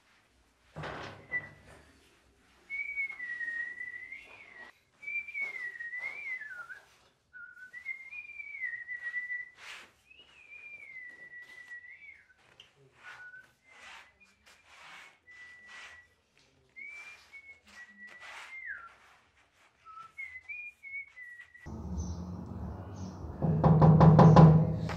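A man whistling a wandering tune in short phrases, with scattered clicks and knocks between them. Near the end the whistling stops and a louder, low rumbling noise takes over.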